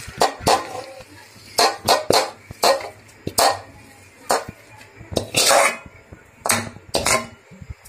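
A perforated steel spoon scraping and knocking against a kadhai while sticky cooked semolina dough is scraped out into a bowl. It makes about a dozen short metallic scrapes and knocks, with one longer scrape a little past five seconds in.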